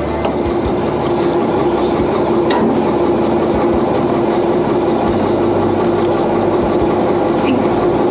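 A heavy truck's engine running steadily at idle, with a constant hum and a low rumble, and a few faint knocks and clicks over it.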